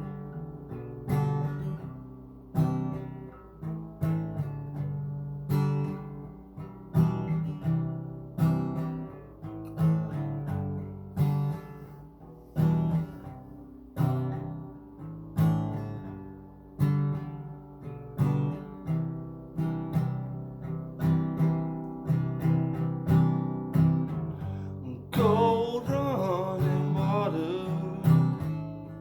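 Acoustic guitar strummed in a slow, steady rhythm, one full chord stroke about every one and a half seconds, as a song's intro. Near the end a voice starts singing over it.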